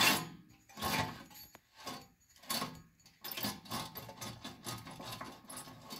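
Bare rear wheel hub of a 1984 Mercedes 300SD W126, axle shaft out, spun by hand: the failed wheel bearing gives a nice and crunchy grinding. There are a few short turns about a second apart, then a longer run of grinding over the second half. The crunch is the sign of a bad wheel bearing whose races are being ripped to shreds.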